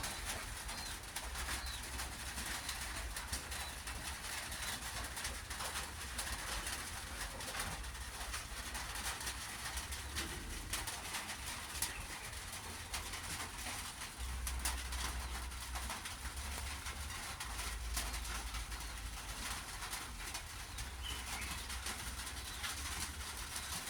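Steady rain hissing with birds calling over it, including small chirps.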